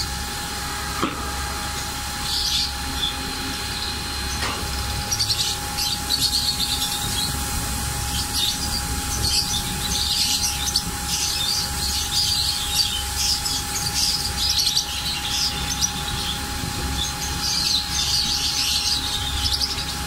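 A caged flock of lovebirds chattering in rapid high-pitched chirps, growing busier after the first few seconds, over a steady low hum.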